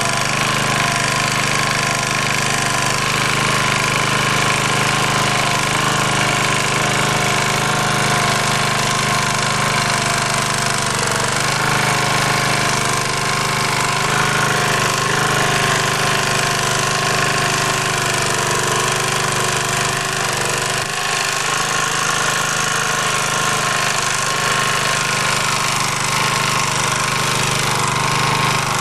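MD3 walk-behind tractor (motoblock) engine running steadily under load while its rotary tiller cuts through garden soil in first gear.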